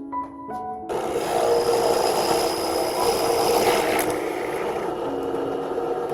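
A tool working wood, a steady scraping, rubbing noise that starts about a second in and runs on, with a couple of sharp ticks. Faint music notes play underneath.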